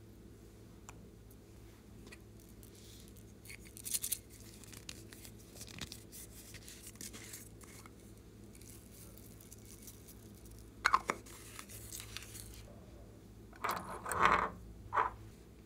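Small makeup compacts and a plastic container handled over a bowl of slime: light scrapes and clicks, a soft rattle of sprinkles tipped out, and a few sharper knocks in the second half.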